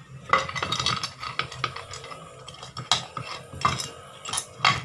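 Irregular metallic clinks and knocks as the 13 mm steel bolts are unscrewed and pulled from a Tata Zest gearbox's rear cover and the cover is worked loose from the casing.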